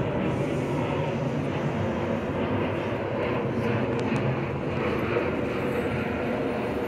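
Steady murmur of a large crowd talking at once, many voices blending into an even hubbub.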